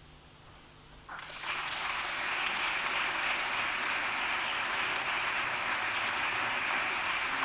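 Audience applauding, breaking out about a second in after a quiet moment and then going on steadily.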